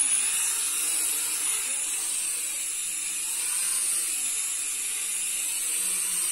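HX750 toy quadcopter's small electric motors and propellers running with a steady high-pitched whine as the drone lifts off and hovers low.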